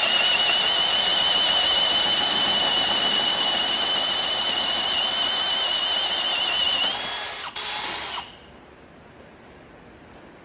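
A power-driven hole saw on a JMR tubing notcher cuts a notch in metal tubing, giving a steady high whine over rough cutting noise. The whine steps up slightly near the end and stops about eight seconds in.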